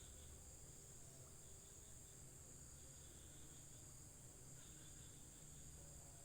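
Faint, steady chorus of night insects: a continuous high-pitched trill, with a second, lower trill starting and stopping every second or two.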